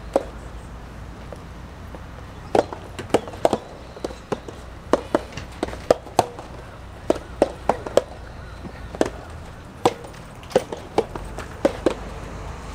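Soft tennis ball struck by rackets and bouncing on the court: a run of sharp pops at irregular intervals, some coming in quick succession.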